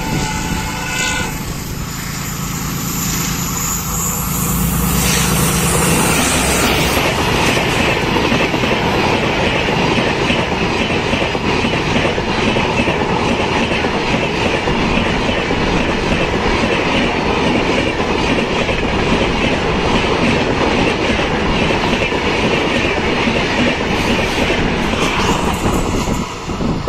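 A WDP4 locomotive's horn dies away about a second in. The locomotive's two-stroke EMD diesel engine then drones low as it comes by. After that comes a long rake of LHB passenger coaches rolling past at speed, with steady wheel-on-rail noise and clickety-clack.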